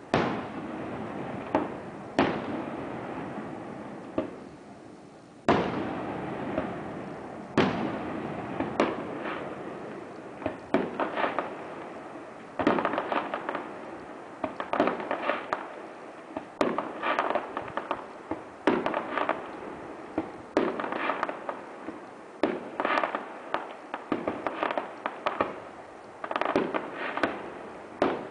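Aerial fireworks bursting one after another, each sharp bang trailing off in echo. From about twelve seconds in the bangs come faster, in crackling clusters.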